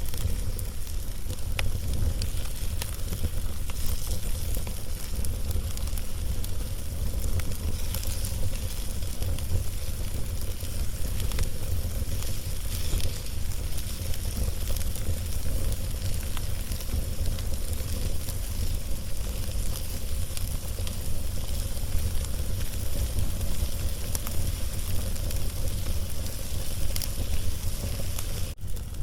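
Wood log fire crackling, with scattered sharp pops and a steady hiss over a constant low rumble.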